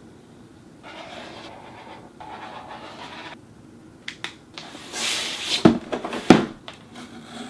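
Felt-tip marker scratching across cardboard in two strokes, then a few sharp clicks, a brief rush of cardboard sliding, and a cardboard box knocking twice onto a wooden tabletop, the second knock the loudest.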